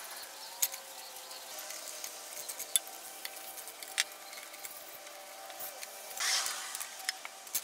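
Scattered sharp metallic clicks and taps of hand-removed oil and coolant line fittings on a turbocharger, with a brief scraping rustle about six seconds in.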